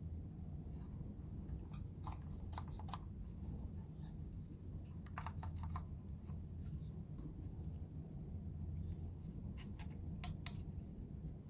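Scattered light clicks and scratchy handling noises from a cordless tool battery and its packaging being handled, in small clusters, over a steady low hum.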